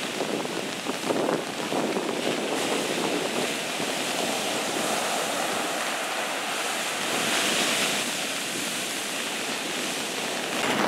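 Heavy storm surf driven by a hurricane, waves breaking and washing up the beach in a steady rush of white noise.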